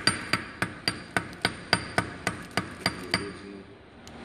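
Hammer striking a block on a wooden stump in quick, even blows, about three to four a second, each with a short ring. The blows stop a little after three seconds in.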